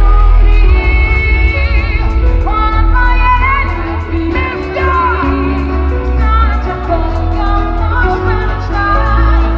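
Pop-dance band playing live through a loud concert sound system: sung lead vocals over heavy bass and a steady beat.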